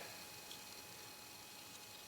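Near silence: faint room tone with a steady hiss.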